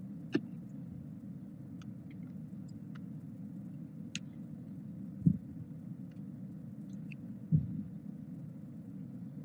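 Steady low hum of room noise with a few faint clicks from a laptop being operated, and two dull thumps about five and a half and seven and a half seconds in.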